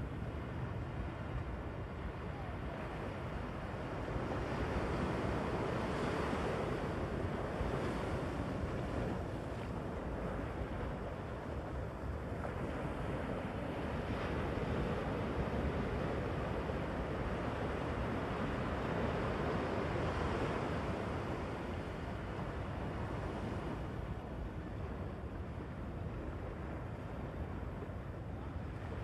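Pacific surf breaking and washing up the beach as a steady rush of white noise. It swells louder twice, each surge lasting several seconds, about four and fourteen seconds in.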